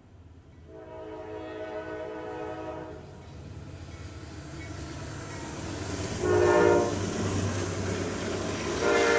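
Diesel freight locomotives sounding their horn while passing: a long blast about a second in, a short louder blast past the middle, and another blast starting near the end. Under the horn, the rumble of the locomotive engines and rolling cars grows louder as the train goes by.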